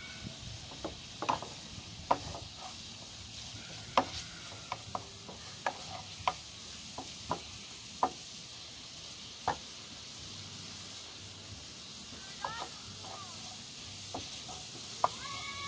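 Food sizzling in a frying pan on a portable gas camp stove, with a steady hiss, while a wooden spatula stirs it, knocking and scraping against the pan at irregular moments, about a dozen times.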